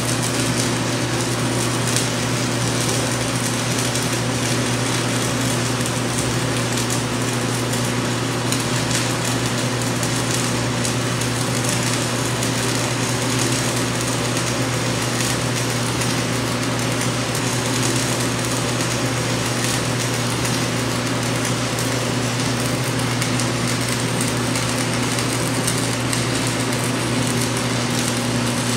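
Steady crackle and hiss of a DC stick-welding arc from a Forney Easy Weld 180 ST, burning a 7018 electrode along a fillet weld, with a steady low hum underneath.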